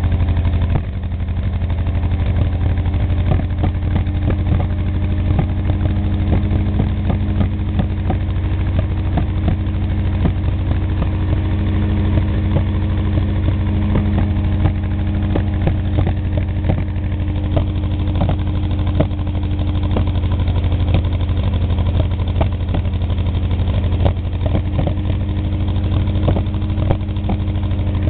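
Air-cooled four-cylinder Wisconsin engine on a leaf loader running steadily, heard close to its exhaust stack, with frequent short sharp pops or ticks over the steady note. The level dips briefly just under a second in.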